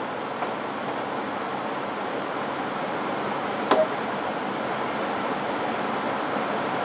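Steady rushing airflow of a ventilated lab work cabinet's blower, with one sharp knock a little past halfway as a plastic mouse-cage lid is set down on its cage.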